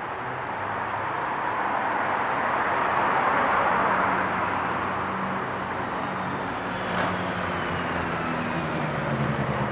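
Street traffic: a passing car's tyre and road noise swells and fades, then a low engine hum builds as a vehicle moves past close by near the end. One short knock about seven seconds in.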